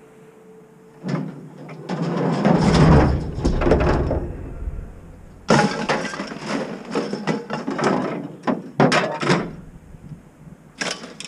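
Scrap metal clattering and crashing in a run of jumbled impacts, heaviest about two to four seconds in, then a second burst of rattling bangs after a short pause.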